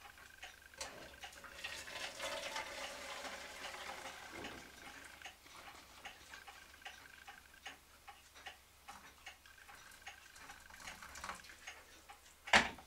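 Hot water poured from an electric kettle into a plastic tank, a faint splashing trickle over the first few seconds. A steady ticking runs through it at about two ticks a second. A sharp clunk comes just before the end.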